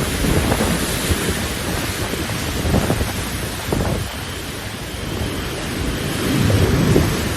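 Hurricane wind gusting with heavy rain, the wind buffeting the microphone in a low rumble. The gusts swell and ease, and are loudest near the end.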